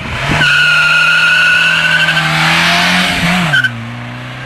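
Volkswagen Gol doing a burnout: the engine is held at high revs while the front tyres squeal with a steady high-pitched screech. The screech cuts off a little after three seconds in, and the engine note drops as the car drives away.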